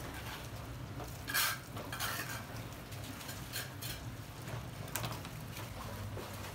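Water sloshing and splashing in a plastic basin as hands swish and squeeze fresh rice noodles, with irregular splashes and small knocks, the loudest about one and a half seconds in.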